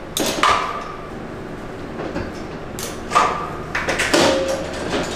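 Steel meat hooks and trolleys carrying pig carcass halves sliding along an overhead rail: metal scrapes, each with a brief squeal, about half a second in and again around three and four seconds in.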